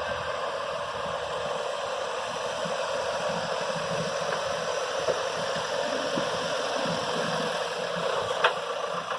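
Earth-moving machinery running steadily during backfilling work on a car park, with a single sharp knock near the end.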